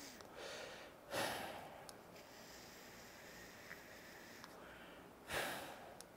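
A person vaping on a dotMod dotAIO boro device with a YachtVape Pandora bridge. A faint draw through the device is followed about a second in by a sharp breath in, and a breath out of the vapour comes near the end.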